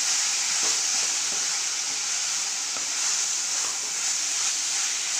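Coconut burfi mixture sizzling in ghee in an aluminium pan while a spatula stirs it: a steady hiss with faint scrapes, the mixture thickening toward the burfi stage.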